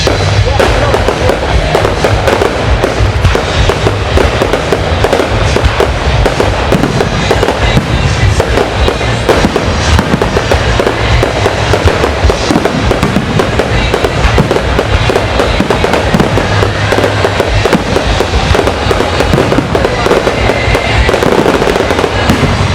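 Fireworks going off in a dense, continuous barrage of rapid bangs and crackling, with no pauses. Music plays underneath.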